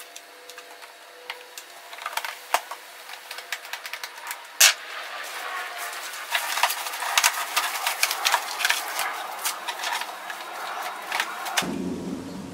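Handling noise on a Honda EU2000i inverter generator: clicks and knocks as the plastic side panel is fitted back on, with one sharp snap about four and a half seconds in. After that comes a long stretch of rustling with scattered clicks as a fabric storage cover is pulled over the generator.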